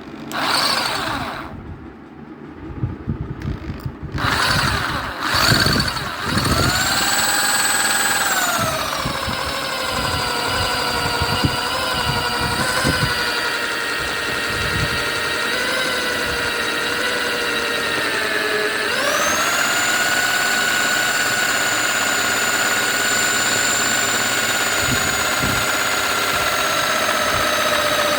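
Electric drill running a reciprocating hacksaw-blade attachment: a few short bursts at first, then the motor whine runs up to speed and holds steady. Its pitch sags a little, dips sharply just before two-thirds of the way through, then climbs back to a higher steady speed.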